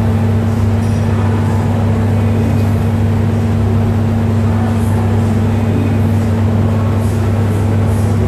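A steady, loud low hum with a second, higher tone above it, unchanging in level, like machinery or ventilation running.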